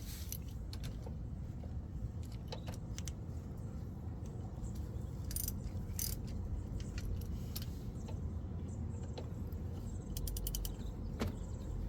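Wrench on the bottom brake caliper bolt of a Toyota RAV4, giving scattered metal clicks and a quick run of ratchet clicks a little after ten seconds in, over a steady low rumble.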